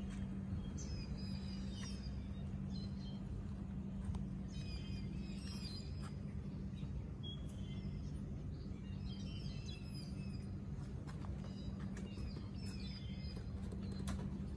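Steady low hum of air-conditioner outdoor units running, with small birds chirping on and off.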